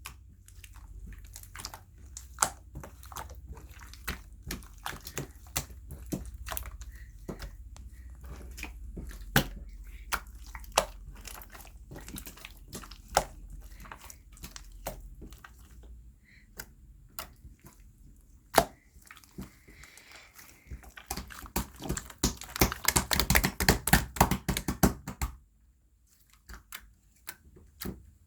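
Slime being played with by hand, giving sharp clicks and pops spread throughout, then a dense stretch of rapid crackling near the end. A low hum sits underneath for about the first half.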